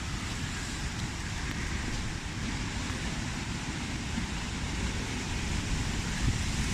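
Outdoor wind blowing steadily, buffeting the microphone with an uneven low rumble over an even hiss.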